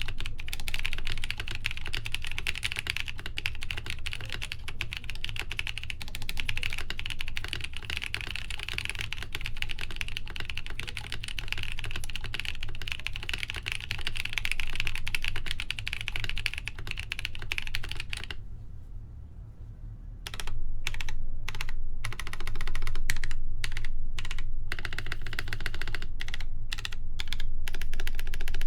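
Typing on a BOX 75 mechanical keyboard with lubed Gazzew U4T tactile switches, a polycarbonate plate, no foam and Cherry PBT keycaps. A dense, unbroken run of keystrokes gives way about two-thirds of the way through to a pause of about two seconds, then typing resumes in shorter bursts.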